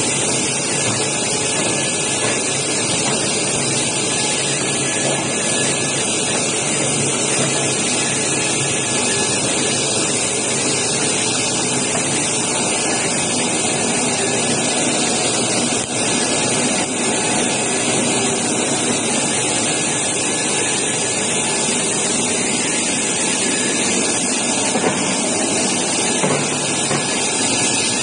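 Industrial washing and drying machine for acrylic boards running: a steady rushing hiss of water spray jets playing over its brush rollers.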